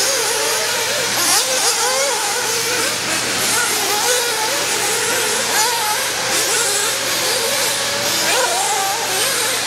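Radio-controlled dirt oval cars racing on a clay track: several motor whines rise and fall with the throttle over a steady hiss, with brief louder surges of hiss as cars pass.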